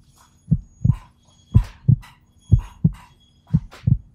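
Heartbeat sound effect: a low double thump, lub-dub, repeating about once a second over a faint steady hum.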